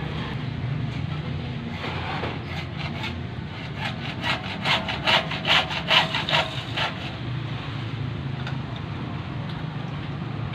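Hacksaw cutting through a blue plastic water pipe by hand: quick back-and-forth strokes, about three a second, starting about two seconds in, loudest in the middle and stopping about seven seconds in.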